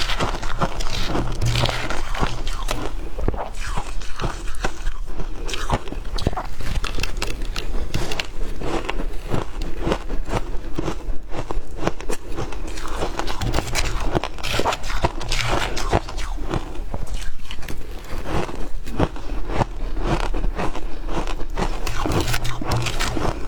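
Close-up biting and chewing of shaved ice: dense, continuous crunching and crackling with no pause.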